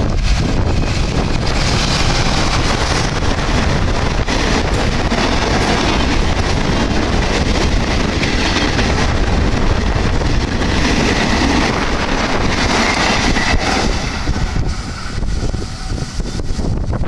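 Diesel-hauled express passenger train passing close at speed: a loud rushing rumble of wheels on rail and carriages going by, with wind buffeting the microphone. It starts to fade near the end as the train draws away.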